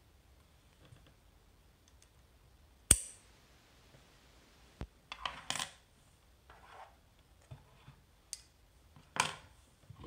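A series of sharp metallic clicks and clinks from small metal lock parts and tools being handled on a brass lock cylinder. The loudest is a single click with a brief ring about three seconds in, followed by a quick cluster of clinks around five and a half seconds, light scrapes, and another sharp click near the end.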